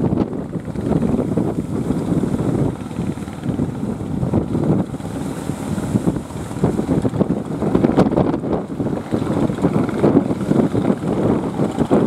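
Strong wind buffeting the microphone, a dense rumble that swells and drops in gusts.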